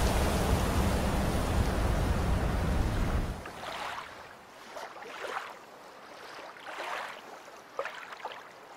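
A steady low outdoor rumble for about three seconds, which cuts off abruptly. Then small waves lap on a shore, swelling and fading softly at irregular intervals.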